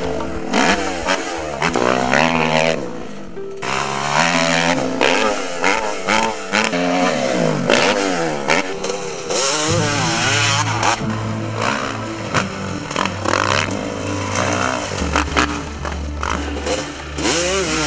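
Dirt-bike engines revving up and down in quick repeated rising and falling sweeps, over background music with a steady low bass line.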